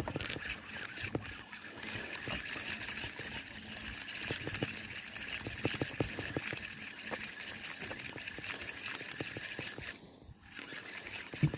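Baitcasting fishing reel being cranked to retrieve line: a steady whirring with light clicks and rod-handling knocks. The whirring pauses briefly about ten seconds in, and a sharper knock comes near the end.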